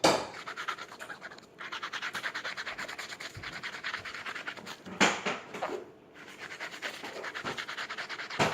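A brush scrubbing a sneaker in rapid back-and-forth strokes, pausing briefly around six seconds in. There is a knock at the start and another about five seconds in.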